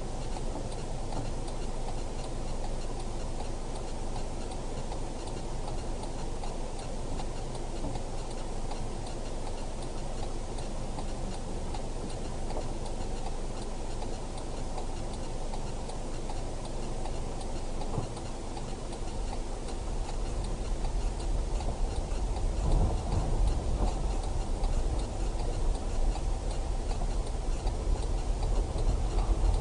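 Steady, regular ticking inside a car's cabin over a low engine and road rumble. The rumble grows louder about twenty seconds in.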